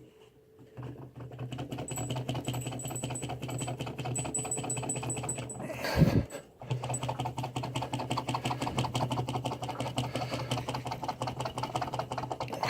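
Rapid metallic rattling and clicking as the Triumph Tiger 800's inner clutch bearing sleeve is wiggled back and forth to work it off the shaft, with one sharper knock and a brief pause about halfway through.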